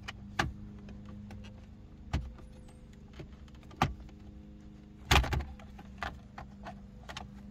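Scion tC dash trim panel being pulled off by hand: scattered plastic clicks and snaps from its clips, the loudest cluster about five seconds in as the upper left corner lets go, over a steady low hum.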